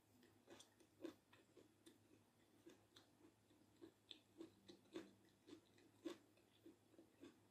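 Close-miked chewing of a mouthful of food: soft, wet mouth clicks and smacks, about two or three a second, a few louder than the rest.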